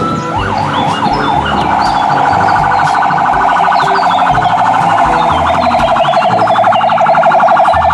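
Fire tanker truck's electronic siren: a few quick rising-and-falling sweeps, then from about a second and a half in a rapid, steady pulsing warble.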